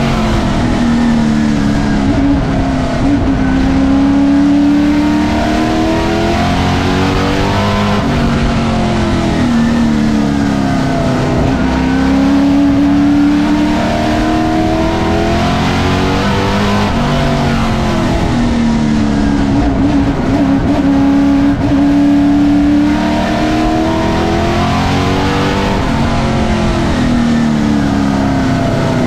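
Race car engine heard from inside the cockpit at full racing pace, its pitch climbing as it accelerates and dropping as it slows, over and over about every eight seconds around a short oval.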